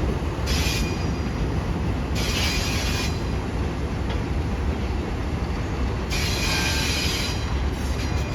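Freight train rolling along with a steady low rumble, and three spells of high wheel squeal about half a second, two seconds and six seconds in.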